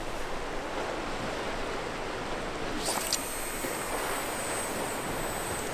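Sea surf washing against the rocks below, a steady rush of waves with some wind. About three seconds in, a high, thin hiss starts and keeps going.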